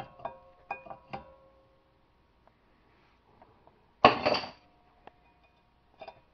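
Wrench and socket clinking on the steel rear caliper bracket bolts of a Ford Escape, several ringing metal clicks in the first second. About four seconds in comes a louder, noisy half-second burst, then a few light clicks near the end.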